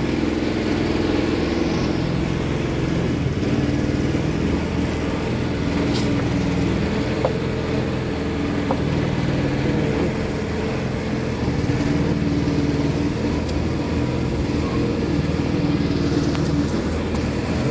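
A motor engine running steadily, its pitch wavering a little, with a few faint clicks of a knife on a wooden cutting board as tuna is sliced.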